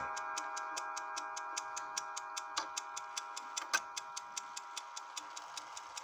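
Seven-jewel platform escapement of a 1970 Schatz triple-chime mantel clock ticking quickly and evenly, about five ticks a second. Under it the clock's brass chime rods keep ringing faintly and slowly die away.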